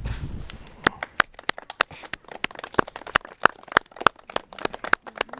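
A few people clapping: separate, distinct hand claps in a quick, irregular run, starting about a second in.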